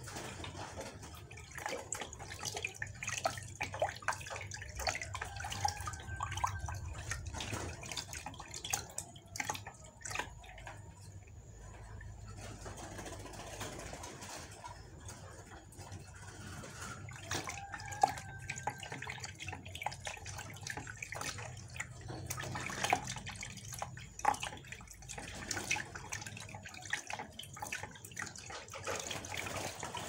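Water splashing and dripping in a plastic basin as hands scoop it over a merbuk (zebra dove) held in the water, soaking its feathers through; irregular splashes and drips.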